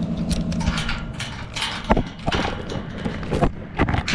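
Pickup truck engine idling, then from about a second in a string of sharp clicks and knocks.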